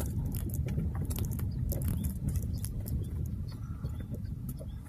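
Car rolling slowly over a rough dirt construction road, heard from inside the cabin: a low rumble with many small clicks and crackles from the tyres on loose ground.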